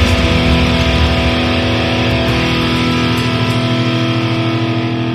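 Closing of a post-hardcore rock song: an electric guitar chord held and ringing out, fading slightly, with the deep bass dropping away about a second in.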